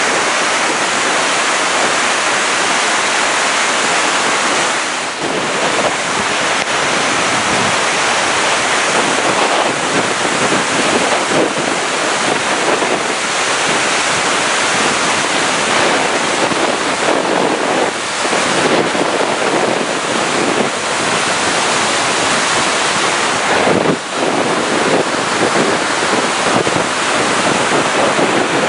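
Muddy flash-flood water rushing and churning over the energy-dissipator blocks of a concrete flood channel, a loud, steady rush that dips briefly a few times.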